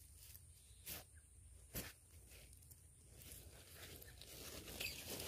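Faint rustling handling noise close to the microphone, with two brief soft knocks about one and two seconds in; the rustling of clothing grows louder toward the end.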